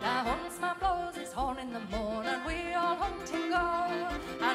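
A woman singing a traditional English folk song, her voice wavering and gliding, with fiddle and folk band accompaniment over a steady low beat about twice a second.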